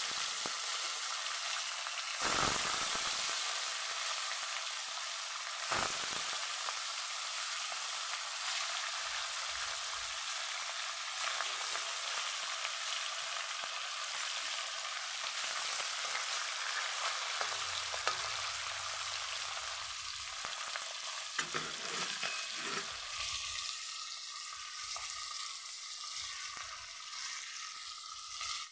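Turmeric-and-salt-rubbed fish pieces frying in hot oil in a kadai: a steady sizzling hiss, with two brief louder flares about two and six seconds in, easing a little near the end.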